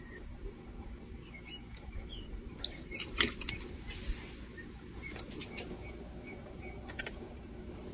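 Crunchy, gravel-textured slime being worked by hand, giving scattered small crackles and clicks, with a brief louder cluster about three seconds in.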